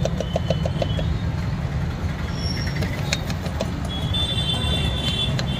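Knife chopping small red onions on a cutting board in a quick run of light taps, then a few more cuts, over a steady low rumble of road traffic.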